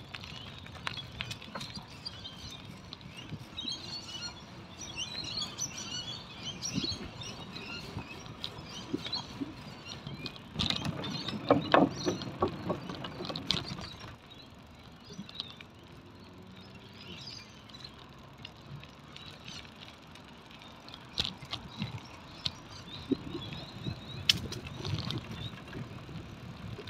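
Bicycle rolling along a paved path: tyre and road noise with frequent clicks and rattles from the bike over bumps, louder for a few seconds near the middle. Birds chirp in the background over the first several seconds.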